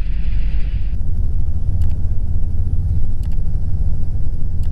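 Ikarus C42 microlight's engine and propeller running at low power during the landing rollout on a grass strip, a steady low rumble; the higher hiss drops away about a second in.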